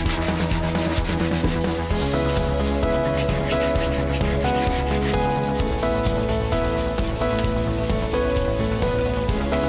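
Sandpaper and an abrasive pad rubbed by hand over a bare metal motorcycle lever, in rapid back-and-forth strokes that scrape steadily throughout.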